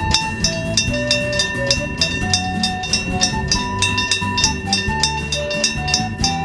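Railway level-crossing bell alarm ringing in fast, even strokes, about three to four a second, its ringing tone sustained between strikes, over background music with a melody and bass line.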